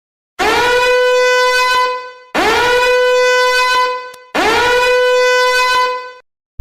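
A horn sound effect: three identical long blasts about 2 s apart, each scooping up in pitch at the start and then holding one steady bright note.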